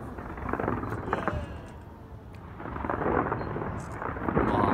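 Distant fireworks display: a low rumble of bursts with scattered sharp cracks, thickening into dense crackling over the last two seconds.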